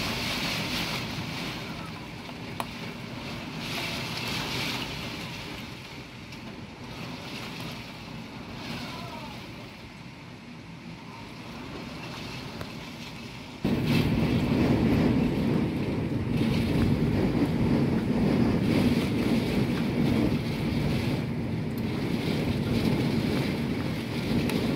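Typhoon wind and heavy rain heard from behind a window as a steady rushing noise. A little past halfway it jumps suddenly louder and heavier.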